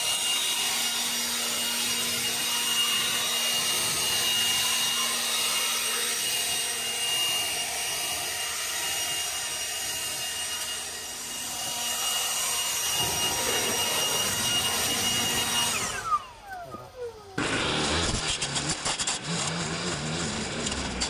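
Cordless leaf blower running at a steady high whine, then spinning down about three-quarters of the way through. After that, a long-shafted trimmer cuts grass along a path edge with a rough, choppy sound.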